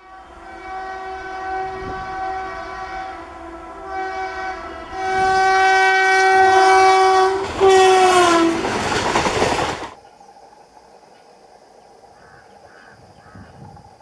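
Indian Railways electric locomotive's horn sounding in several long blasts as the train approaches, the pitch dropping as the locomotive passes, followed by the loud rush of the passing train. About ten seconds in it cuts off abruptly to quiet outdoor background with faint chirping.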